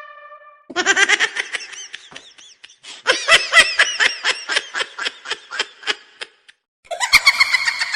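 Laughter sound effect: two bouts of quick, bouncing giggles in rapid repeated syllables, separated by a brief pause. Near the end a different, louder effect starts abruptly.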